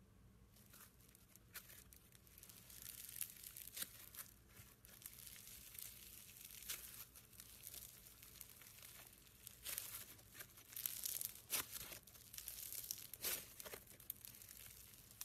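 Foam-bead slime (floam) being squeezed and kneaded by hand: a quiet, crunchy crackling of the tiny beads, coming in irregular clusters of sharp crackles.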